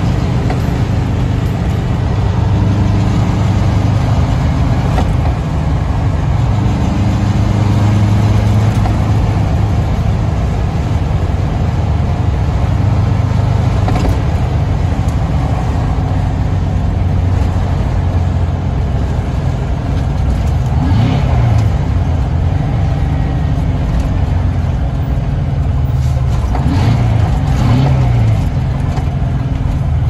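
Detroit Diesel 8V92 two-stroke V8 of a Kenworth K100E Aerodyne cab-over truck running at road speed, heard from inside the cab. The engine note falls and climbs again twice, about two-thirds of the way in and near the end.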